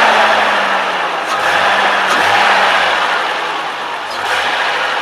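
Nissan L28E fuel-injected straight-six idling in an open engine bay, with the loud air rush of its engine-driven clutch fan over the engine note. The rush swells and eases a little from moment to moment.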